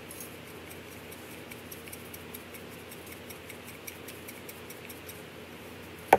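Faint, rapid, irregular clicking as pepper is dispensed from a small pepper container over a bowl of noodles. Near the end comes one sharp knock as the container is set down on the table.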